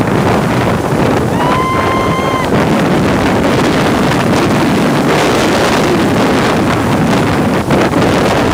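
Loud, steady rush of Horseshoe Falls' pounding water and spray, mixed with heavy wind buffeting the microphone on the open top deck of the Maid of the Mist boat. About a second and a half in, a brief high held call cuts through for about a second.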